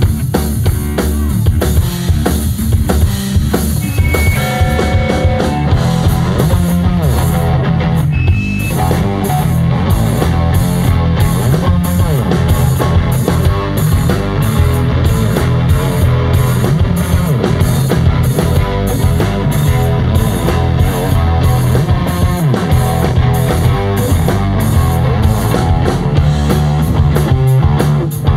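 Live rock band playing, with a drum kit keeping a steady beat under electric guitar.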